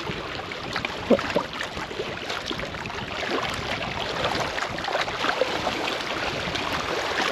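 Small waves lapping and splashing against a rocky shoreline, a steady wash with many small crackles. A short, sharper sound stands out about a second in.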